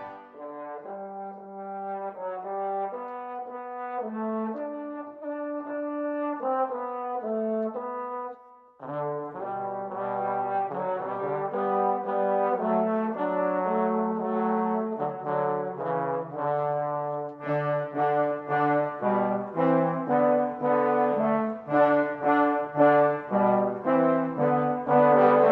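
Brass ensemble playing, several instruments holding notes together in chords. It stops briefly about nine seconds in, then resumes fuller.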